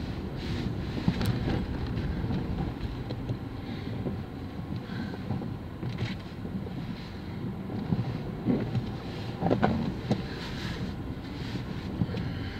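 Road noise inside a moving car's cabin: the engine and tyres running on a wet road, steady, with a few brief louder knocks.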